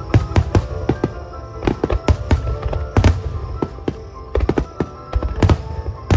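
Aerial firework shells bursting in quick, irregular succession, several sharp bangs a second, over music.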